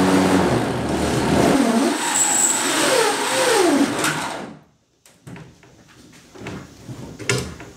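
Power drill running as it bores through the side of an aluminum jon boat, its motor pitch sliding down as the trigger is eased. The drill stops suddenly about four seconds in, leaving only a few faint clicks.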